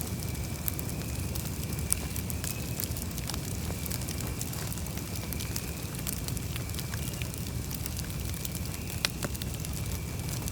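Campfire crackling: a steady stream of small sharp snaps and crackles over a low rumble of burning, with two louder pops, one about two seconds in and one near the end. A faint, thin high tone runs underneath.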